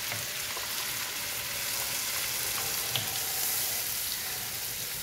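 Blended tomato-spice paste sizzling in hot butter and oil in a nonstick frying pan, stirred with a spoon, with a light tap about three seconds in.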